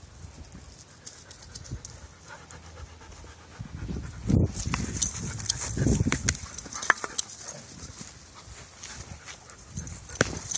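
Dog panting during play, with rustling and scuffing of movement over dry, leaf-strewn ground, loudest about four to six seconds in.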